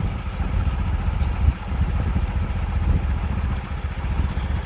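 Concrete mixer truck's engine running steadily, a low, rough sound that holds the same speed throughout.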